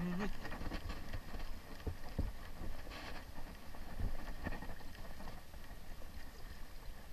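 Small sea waves lapping against shoreline rocks, a steady wash with scattered faint splashes and clicks, over a light wind rumble on the microphone.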